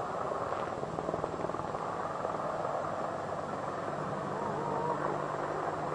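AH-64 Apache attack helicopter flying, a steady rush of rotor and turbine noise with a low hum underneath.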